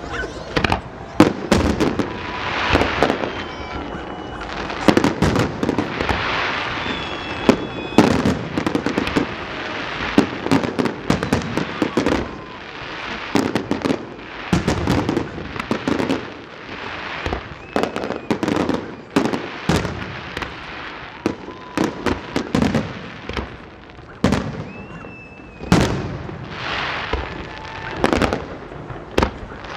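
Fireworks display: aerial shells bursting in a rapid, irregular series of bangs, with a hissing crackle between them.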